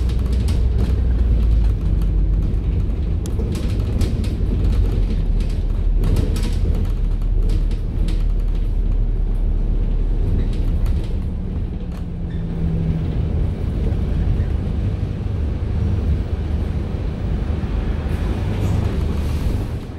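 Volvo B5LH diesel-electric hybrid double-decker bus on the move, heard inside on the upper deck: a steady low rumble of the drivetrain and road. Scattered knocks and rattles come through it, most in the first several seconds and again near the end.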